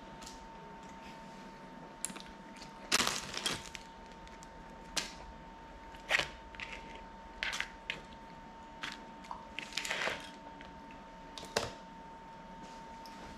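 Small parts and a plastic parts box being handled on a workbench: irregular clicks and light knocks, with a few short rustles, about a dozen in all. A faint steady thin tone runs underneath.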